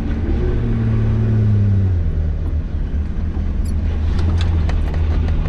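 Nissan Patrol Y60's engine running under load on an off-road trail. Its note rises a little, then eases off about two seconds in. A few sharp knocks and rattles come near the end.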